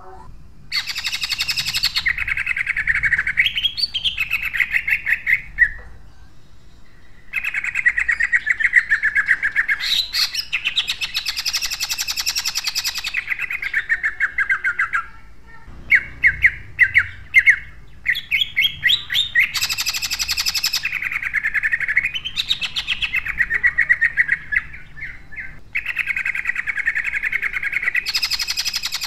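Caged male cucak ijo (green leafbird) singing loud, rough-voiced 'tembakan': four long runs of rapid, tightly packed repeated notes with short pauses between them, and a handful of sharp separate notes near the middle.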